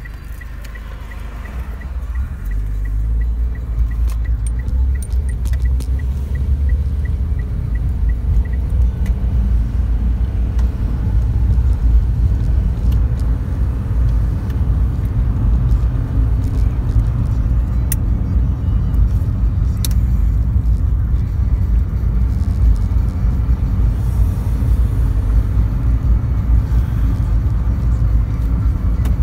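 Car cabin road noise: a steady low engine and tyre rumble that rises as the car pulls away about two seconds in and then holds as it drives on. A regular turn-signal ticking, about two ticks a second, stops roughly a third of the way through.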